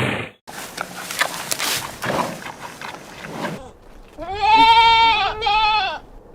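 A few seconds of scratchy, crackling noise, then a goat bleating: one long wavering bleat and a shorter one right after it.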